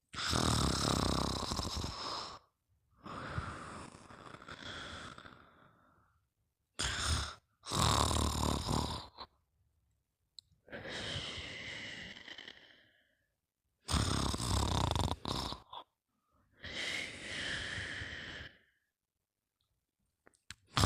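Slow, deep snoring breaths from a sleeper: about three full breaths, each a loud snore followed by a softer, quieter breath, with short pauses between them.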